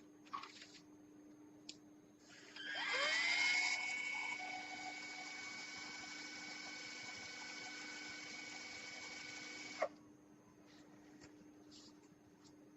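Battery-operated orthopaedic cannulated surgical drill spinning up with a quickly rising whine, running at a steady pitch for about seven seconds, then stopping abruptly with a click. Light handling clicks come before and after.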